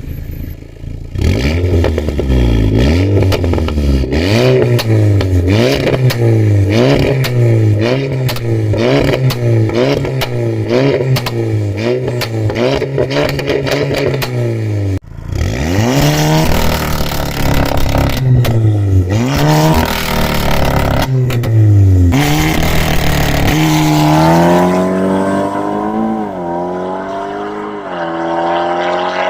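Volkswagen Golf 6 R's tuned turbocharged four-cylinder through an 89 mm exhaust, blipped in quick repeated revs with a dense crackle of pops and bangs. About halfway through it breaks off briefly, then revs up in a few longer rises and, near the end, climbs steadily with small dips in pitch.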